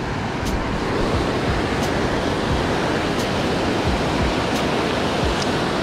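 Ocean surf breaking and washing up the beach around the listener: a steady, even rush of waves and foam.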